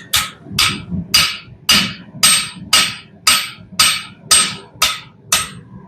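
Hammer striking metal in a steady rhythm, about eleven blows at roughly two a second, each with a short metallic ring.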